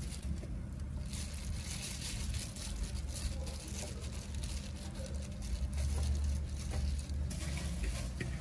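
Plastic-gloved hand tossing and pressing steamed cellophane noodles and vegetables on a plate: irregular plastic crinkling and soft wet handling noises over a low steady rumble.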